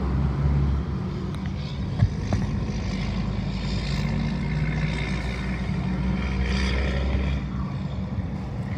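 Small propeller aircraft's engine droning in flight, swelling in the middle and easing off near the end over a steady low hum.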